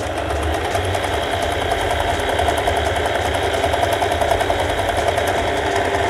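Usha Janome Dream Stitch electric sewing machine running steadily at speed, sewing a zigzag picot stitch on cloth.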